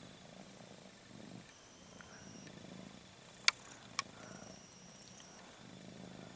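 A domestic cat in labour purring softly, in slow pulses. Two sharp clicks about half a second apart come midway and are the loudest sounds.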